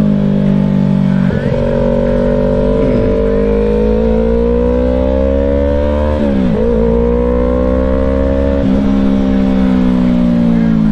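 Yamaha YZF-R3's 321 cc parallel-twin engine running under load. Its pitch climbs slowly for several seconds, dips sharply and recovers about six seconds in, and steps abruptly about a second and a half in and again near nine seconds, following throttle and gear changes.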